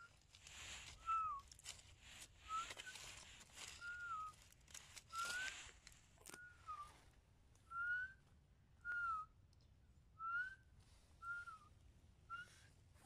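A series of short clear whistled notes, each a quick rise or fall in pitch, repeated about once a second, with brief soft rustles between them.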